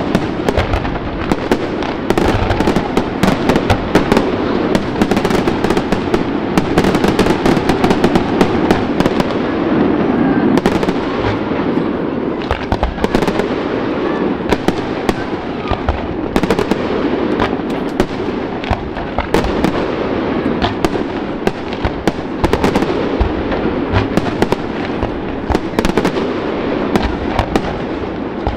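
Aerial firework shells bursting in quick succession: a dense, unbroken run of bangs and crackling.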